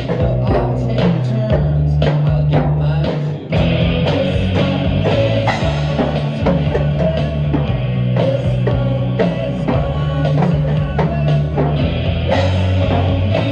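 Rock song with electric guitar, bass and vocals, with a drum kit played along to it. There is a short drop a little over three seconds in before the full band comes back in.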